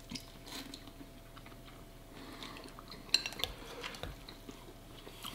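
Chopsticks clicking and scraping against noodle bowls as noodles are picked up, with a cluster of sharper clicks about three seconds in.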